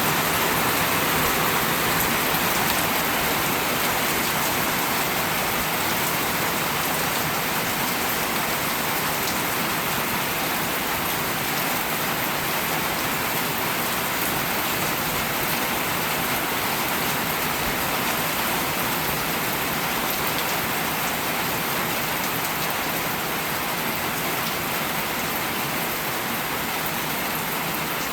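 Steady rain falling: an even, unbroken hiss of many drops, with faint individual drop ticks scattered through it.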